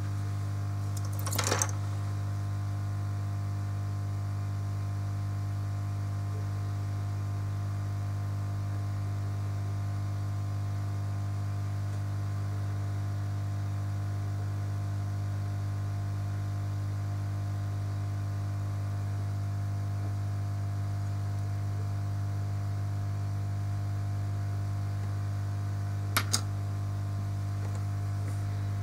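Steady electrical hum, with brief small metallic clicks about a second and a half in and again near the end.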